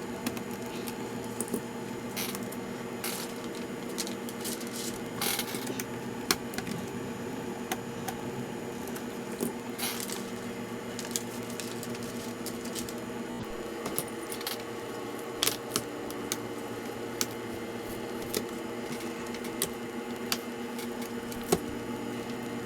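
Scattered small clicks, taps and light rattles of small metal and plastic parts and tools being handled, over a steady low hum.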